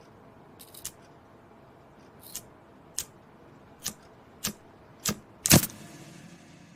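A series of about seven sharp clicks or knocks, coming closer together and growing louder, the loudest about five and a half seconds in, over a faint steady background.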